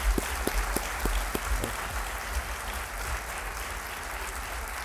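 Audience applauding: a few sharp, close claps stand out in the first second and a half, then the clapping carries on as an even, steady applause.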